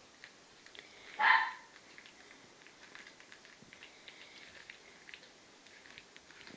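A three-week-old Lhasa Apso puppy gives one short, high bark about a second in. Faint scratching and patter of small paws on newspaper and blanket goes on around it.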